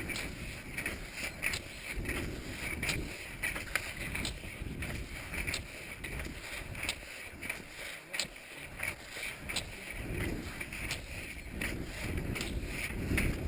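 Footfalls of ski touring uphill on snow: regular crisp clicks and crunches of skis, bindings and pole plants, about three every two seconds, over a low uneven rumble on the body-worn camera's microphone.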